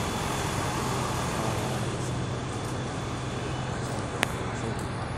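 Steady city-street background noise with a low, even drone, and one sharp click a little after four seconds in.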